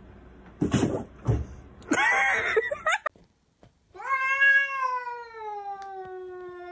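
A domestic cat's long, drawn-out yowl lasting about three seconds, sagging slightly in pitch and then rising at the end. It follows a burst of clattering and thumps in the first three seconds.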